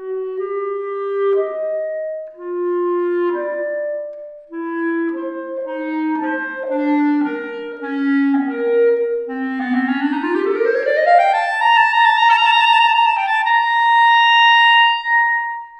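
Solo clarinet playing a melodic phrase of separate notes, then a long rising glissando about two-thirds of the way in that lands on a held high note. It is an anechoic clarinet recording run through a convolution reverb loaded with the impulse response measured in the church's choir area, so it carries that space's reverberation.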